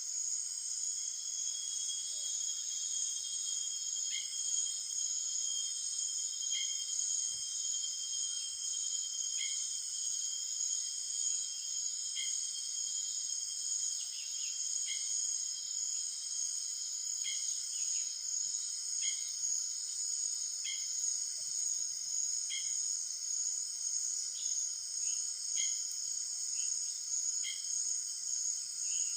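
Steady, high-pitched chorus of forest insects such as crickets, with a short two-pitched call repeating about every two to three seconds over it.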